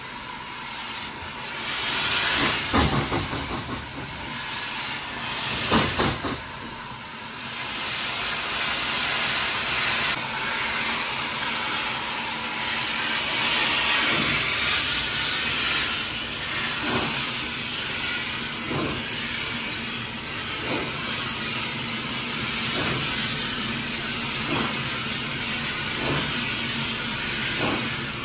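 Hunslet Austerity 0-6-0 saddle-tank steam locomotive working: a steady loud hiss of steam, with irregular exhaust beats at first and slow, evenly spaced beats about once a second through the second half.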